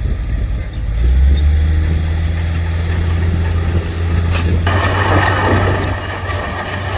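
Heavy diesel engine of earthmoving machinery running with a deep, steady hum; about two-thirds of the way in, a loud rushing noise starts suddenly and carries on over it.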